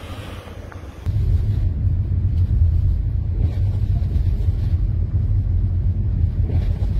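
Strong wind buffeting the microphone in a blizzard: a heavy, steady low rumble that gets much louder about a second in.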